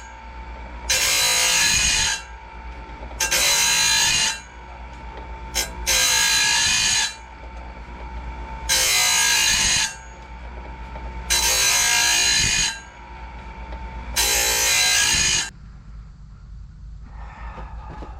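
Electric sawmill blade sharpener grinding the teeth of a bandsaw mill blade one tooth at a time: six loud grinding strokes, each about a second long and coming roughly every two and a half seconds, with the motor humming steadily between them. The motor hum stops about three seconds before the end.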